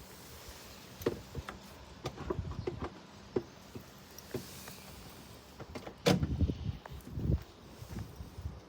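Scattered knocks and clunks of things being handled in and around a van, with a loud heavy thud about six seconds in and another shortly after.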